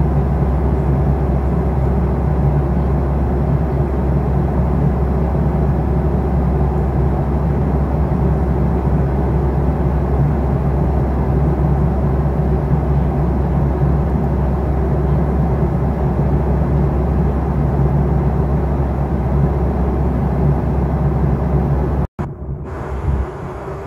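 Steady low rumble of a vehicle in motion, heard from inside. It cuts off abruptly about 22 seconds in, and a quieter background follows.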